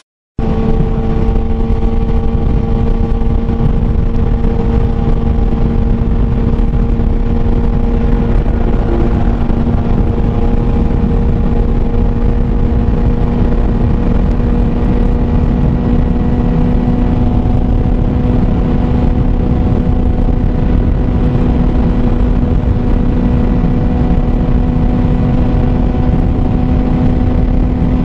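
Sport motorcycle engine running at a steady highway cruising speed, its pitch holding nearly level and edging up slightly near the end, under heavy wind noise on the microphone.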